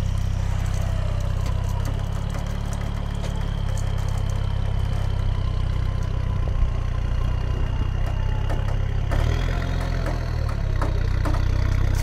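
Off-road UAZ 4x4's engine running steadily at low revs as the truck crawls forward, its front wheel climbing onto a concrete slab; the engine note picks up a little in the last few seconds.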